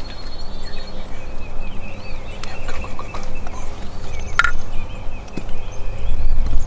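Wild turkey gobbling.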